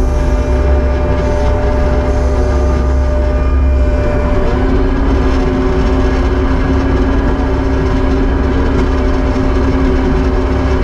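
Diesel engine of a Kubota SVL75-2 compact track loader running steadily under work, a deep rumble with steady droning tones whose pitch rises slightly about four seconds in.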